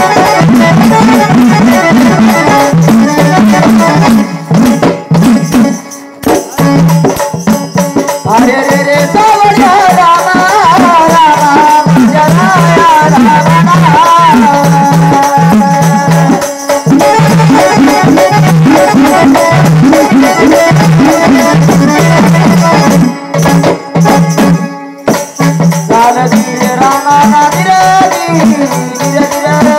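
Live Marathi jagran-gondhal folk music: a rhythm of drum strokes and jingling rattles under held instrumental tones. A solo voice sings a bending melodic line from about eight seconds in until about sixteen seconds, and again near the end.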